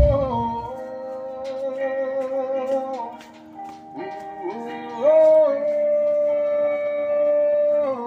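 Music played loud through an Ace AC-2005N amplifier and a pair of D12 cabinets loaded with SW12 Broadway 500-watt speakers: long held notes that change pitch every few seconds, with a heavy low thump right at the start.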